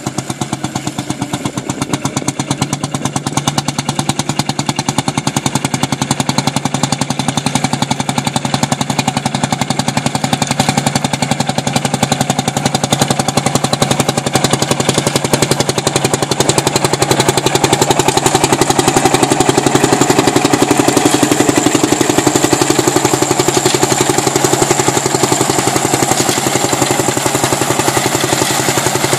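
Field Marshall Series 3A tractor's single-cylinder two-stroke diesel engine running with a steady rapid beat while pulling a reaper binder through standing oats. It grows louder about halfway through as the tractor comes closer.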